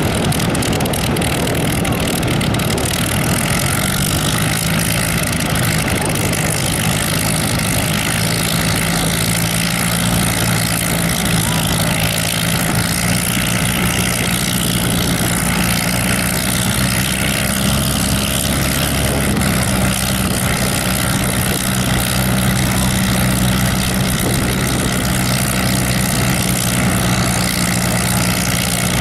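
Bell P-63 Kingcobra's Allison V-12 engine idling with its propeller turning, a steady low drone whose pitch shifts slightly about two-thirds of the way through.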